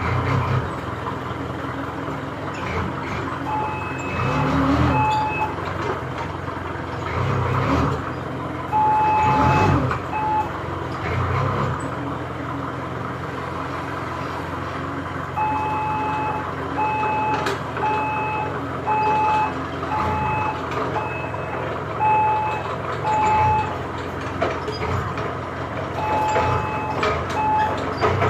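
Hyundai forklift manoeuvring, its reversing alarm sounding in several spells of evenly spaced beeps, a little over one a second, over the forklift's continuous running rumble.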